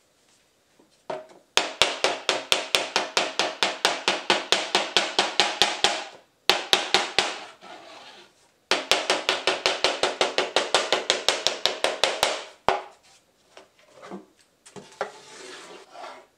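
Small hammer tapping rapidly on a synthetic decking board being shaped into a snowskate: about six blows a second in two long runs with a short pause and a few single blows between them. Softer rubbing sounds follow near the end.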